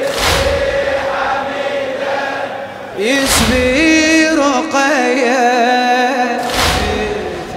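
Crowd of male mourners chanting a latmiya lament, with the whole crowd striking their chests together in a slow beat: three loud thuds about three seconds apart. Between the second and third thud a voice sings a wavering, ornamented line.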